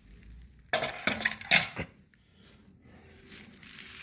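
Knocks and rattles from handling a stock motorcycle exhaust canister, a short cluster of clatter about a second in, then faint handling noise.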